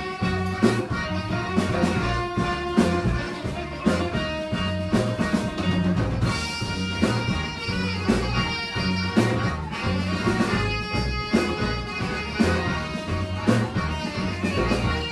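A live band playing an instrumental passage with a steady beat: a repeating bass line, regular drum hits and held instrument notes over it.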